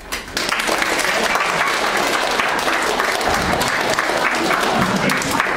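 A small audience of adults and children applauding. The clapping breaks out a moment in and then holds steady.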